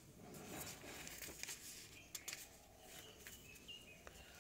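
Near silence: faint room tone with a few soft clicks.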